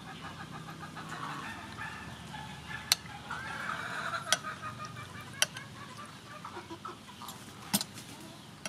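Chickens clucking close by, with about four sharp clinks of a metal spoon and fork against a ceramic soup bowl.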